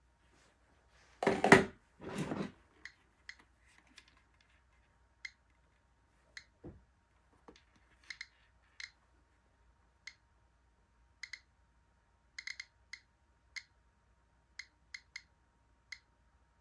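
GQ GMC-600 Plus Geiger counter clicking at irregular intervals, roughly once or twice a second. Each click is a count from the potassium chloride in salt substitute held to its pancake tube. Two louder rustles come early on.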